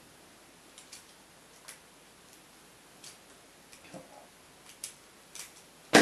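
Scattered light metallic clicks and ticks of a stainless steel split ring, split ring pliers and a treble hook being worked onto a lure's hook eye, with one louder clack at the very end.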